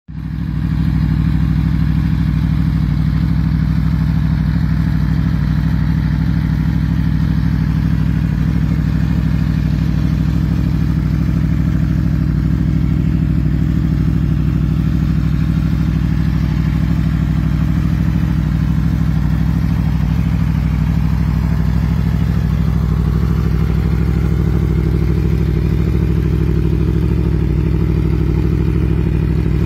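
Aprilia Tuono V4 motorcycle's V4 engine idling steadily through an SC-Project SC1-R aftermarket exhaust, a low, even note with no revving.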